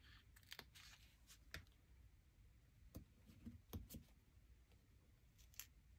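Near silence: room tone with a few faint, scattered clicks and taps from stickers being peeled and pressed onto a planner page with metal tweezers.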